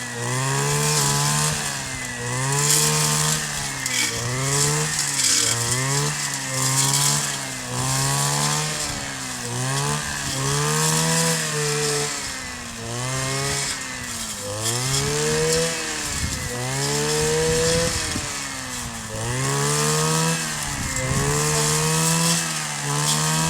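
Kioritz 260 brush cutter's two-stroke engine revving up and down again and again, roughly once every second or two, held at high revs a little longer a few times midway.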